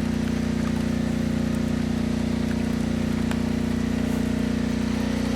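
An engine running steadily at idle, a constant pitched drone that does not change.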